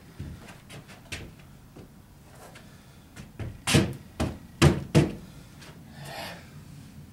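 Footsteps on a plywood subfloor sheet laid over joists and not yet nailed down: a few light taps, then four heavy hollow thumps in quick succession about three and a half seconds in, followed by a short scrape.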